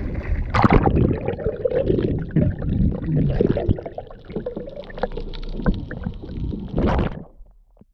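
Rumbling noise with irregular knocks and water sloshing aboard a small boat, cutting off suddenly about seven seconds in.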